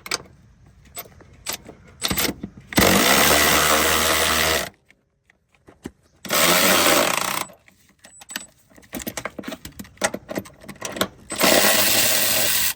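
A handheld power tool runs in three bursts, about two seconds, one second and one and a half seconds long, spinning out the rear shock's upper mount bolts. Clicks and knocks of the socket and tools come between the bursts.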